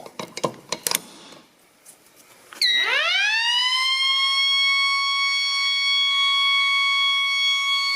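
A few clicks as the tornado alarm is pushed and pulled, then about two and a half seconds in its siren starts, sweeping up in pitch within a second and then holding one steady, loud wail.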